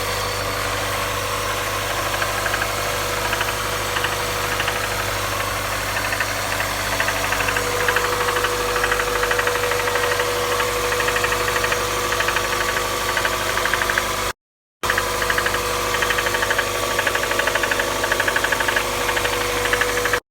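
A 1998 car's 1.8-litre engine running steadily with a fast, even knocking, which the owner calls engine knock. The sound drops out for a moment about fourteen seconds in.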